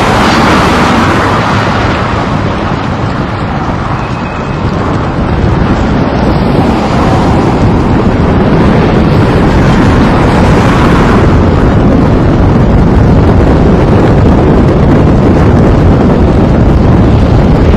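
A Volvo demolition excavator tears into a factory building: loud, continuous rumbling and crashing of steel and rubble, with heavy wind buffeting the microphone. The noise grows louder about a third of the way in.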